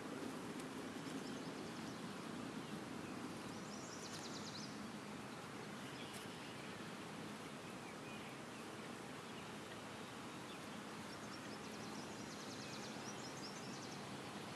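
Steady, faint outdoor background noise. A quick high trill sounds faintly about four seconds in and again near the end.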